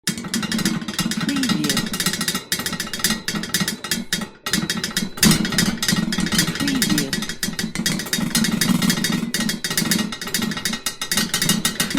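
Iron objects rattling and shaking in a dense, rapid metallic clatter, with a sharp knock about five seconds in and two brief lulls before it.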